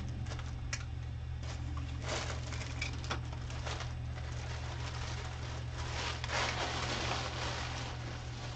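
Rustling and light clicks of packaging and plastic items being handled, with a couple of longer rustles, over a steady low electrical hum.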